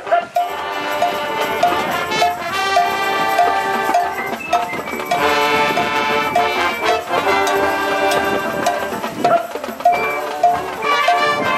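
Marching band playing: brass holding full sustained chords that change every second or two, brightest about halfway through, over a steady ticking beat about twice a second.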